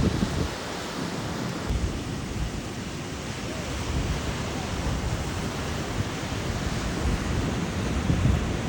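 Ocean surf washing in steadily, with wind buffeting the microphone in low rumbling gusts.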